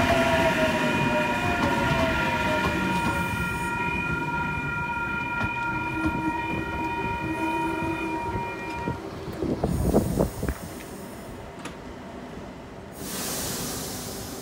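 New Intercity Fleet (D set) electric train slowing along the platform, its motor whine falling in pitch as it brakes, with wheel and rail noise dying away. A steady high ringing tone sounds over it until about nine seconds in, followed by a short cluster of louder knocks about ten seconds in.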